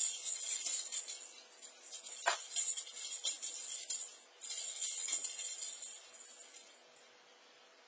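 A cat's jingle ball toy rattling its bell in uneven bursts as the cat bats it around, with a sharp knock about two seconds in. The jingling dies away near the end.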